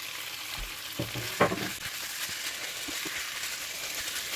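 Diced raw boneless chicken frying in oil with onion and garlic in a nonstick pan, a steady sizzle while a silicone spatula stirs it. A couple of short knocks come about a second in.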